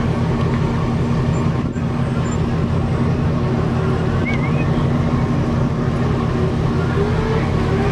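1975 Chevrolet Impala's V8 engine running with a steady low rumble as the car rolls slowly past.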